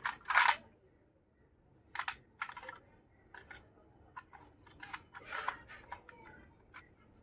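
Small plastic toy kitchen pieces and their packaging being handled in an unboxing: an irregular run of light clicks and taps with short crinkling rustles, the loudest near the start and about five and a half seconds in.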